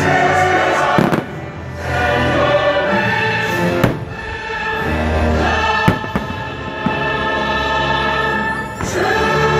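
Fireworks show soundtrack of choir singing over orchestral music, heard from the crowd and broken by several sharp firework bangs, about four in all.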